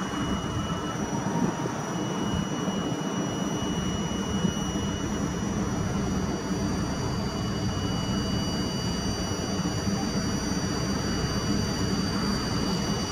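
PKP EP07 electric locomotive approaching with a passenger train: a steady rail and running noise, with a few thin, high, steady whining tones over it.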